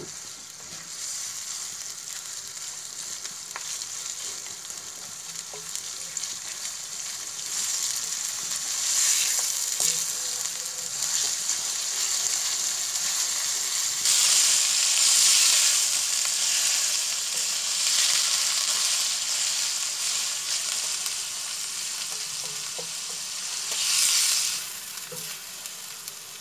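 Minced meat with ginger-garlic paste sizzling as it fries in hot oil in a karahi, its own water already cooked off, while a spatula stirs it. The sizzle swells louder several times, most strongly around the middle and again near the end.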